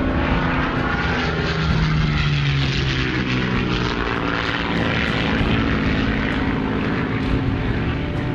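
Propeller aircraft engines running with a steady drone, their pitch shifting slightly.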